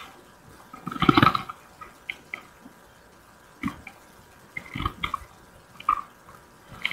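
Sporadic light knocks and clicks of wooden hive frames being shifted and set down in a beehive box, a cluster of them about a second in and a few single ones later.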